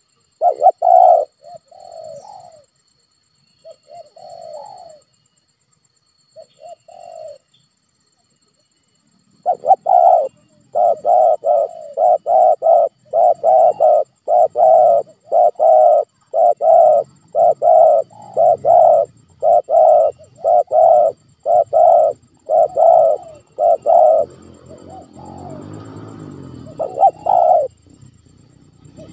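Spotted dove cooing. A few separate coos come in the first seven seconds. After a short pause a fast, even run of repeated coos follows, about one and a half a second, and it fades into a softer stretch shortly before two last coos near the end.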